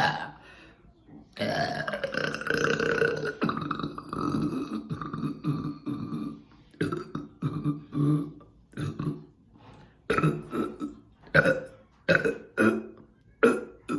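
A woman burping loudly: one long drawn-out burp begins about a second and a half in, followed by a string of shorter burps.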